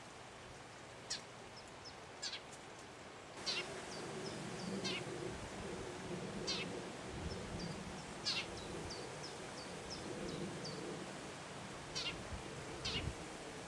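Long-eared owl chicks giving short, high, squeaky begging calls, one every second or two, with faint little chirps between them. A low background rumble comes in a few seconds in.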